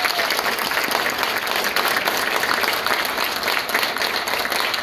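Audience applauding, a dense, steady clapping from a room full of people.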